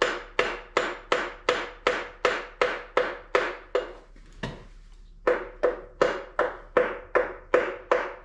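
Mallet tapping rapidly and evenly on the pistons of a 5.3 L LS V8 block to line them up, about three taps a second, each with a short metallic ring. The taps pause with one lone tap a little past the middle, then carry on.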